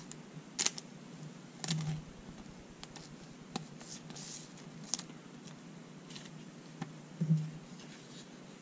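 Cardboard trading cards and thin plastic card sleeves being handled: faint rustling with a few sharp clicks and taps as cards are slid into sleeves.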